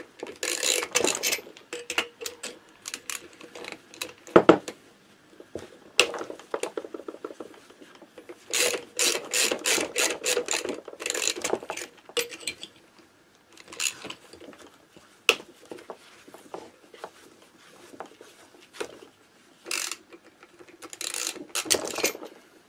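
Ratchet wrench loosening the cylinder studs on a Minarelli AM6 moped engine, clicking in several bursts of quick ratcheting strokes. A single sharp metal knock about four and a half seconds in is the loudest sound.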